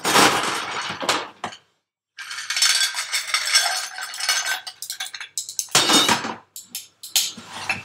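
Crushed ice being scooped and shaken into a glass, a grainy crunching and rattling with glass clinks, in several bursts with short pauses, the longest about two seconds in.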